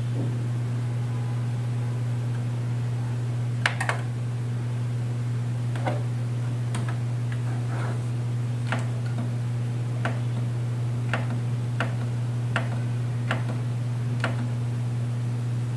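Party speaker system putting out a steady deep bass hum, with faint sharp ticks about once a second.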